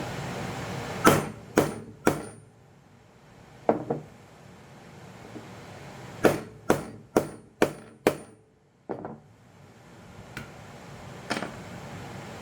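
Hammer blows on metal, each a sharp strike with a short ring. There are three, then two, then a quick run of five, then two more spaced out, in the work of knocking the drilled rivets out of a Honda CBX clutch housing.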